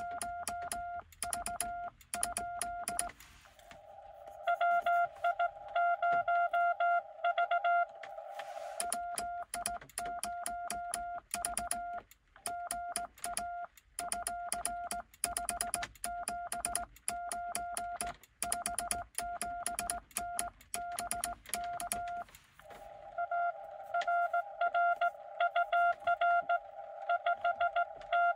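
Morse code tones near 700 Hz from a Xiegu X6100 transceiver, keyed on and off. The clean, hiss-free stretch in the middle is the operator's own sidetone while sending on a cootie (sideswiper) key. A station's code comes in louder inside a band of receiver hiss from about three seconds in to about eight seconds, and again near the end.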